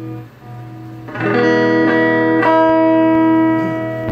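Electric guitar played through a handbuilt Blues Howler tube amp with an EF86 pentode first preamp tube. A chord is strummed about a second in and left to ring, with two more strums over it, easing off near the end.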